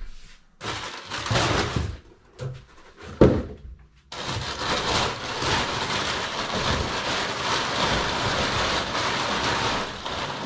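Crumpled brown kraft packing paper rustling and crackling as it is pulled out of a large cardboard box: a short burst of rustling, a single sharp knock a little over three seconds in, then continuous rustling from about four seconds in.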